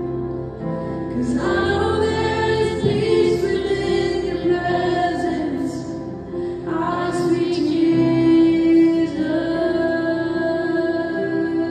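Live worship music: keyboard and acoustic guitar with voices singing long held notes. A sung phrase comes in about a second in and another a little past the middle.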